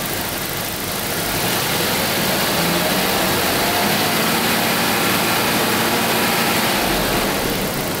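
Jaguar V12 engine brought up from idle to a higher, steady speed about a second in, held there, then dropping back toward idle near the end. This higher RPM is where a stethoscope picks up a weird gushing sound through the oil filter, which the mechanic ties to a non-original filter and the wrong oil.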